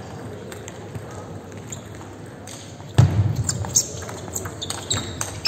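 Table tennis rally: the celluloid ball clicking off the bats and the table in a string of sharp ticks. A loud thump comes about three seconds in, and the clicks come thicker after it.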